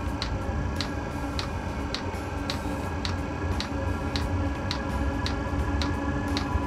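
Chinese clone 8 kW 12 V diesel air heater in its start-up run: the fuel dosing pump ticks steadily about twice a second as it feeds diesel to the combustion chamber, over the steady hum of the blower fan, which is gradually speeding up.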